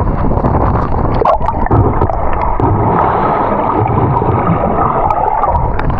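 Loud, steady rush of falling water at a waterfall, with gurgling and splashing.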